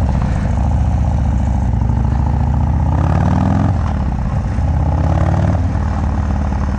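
Harley-Davidson FXDR's 117-cubic-inch V-twin running through a Bassani Road Rage 2-into-1 exhaust as the bike accelerates: the engine note climbs, drops suddenly at a gear change a bit under four seconds in, climbs again, then levels off near the end.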